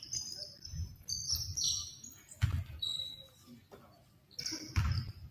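Basketball shoes squeaking on a hardwood gym floor in short, high chirps, with a few dull thuds from the ball or feet.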